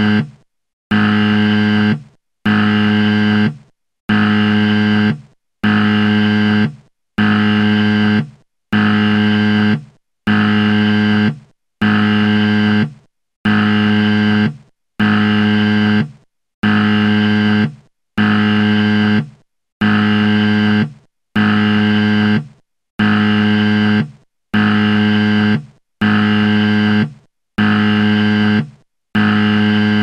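Game-show 'wrong answer' buzzer sound effect repeated over and over: a harsh low buzz about a second long, about every second and a half, looped in the manner of an emergency alert tone.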